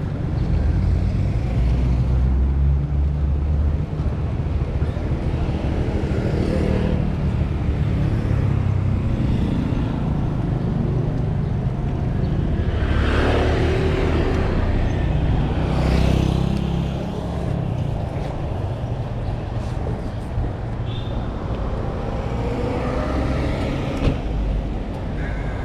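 Road traffic noise: a steady low rumble of vehicles, with one passing more loudly about halfway through.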